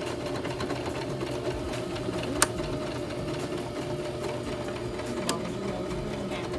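Electric sewing machine running steadily as fabric is stitched under the needle, with two sharp clicks about two and a half seconds and five seconds in.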